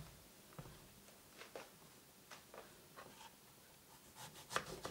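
Kitchen knife cutting into a zucchini on a wooden cutting board: a few faint scattered taps and scrapes, then a quicker run of sharper cuts near the end.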